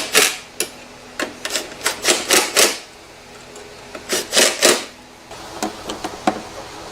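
Hand tool clicking in three short runs of sharp clicks while fasteners on a scooter are being tightened down.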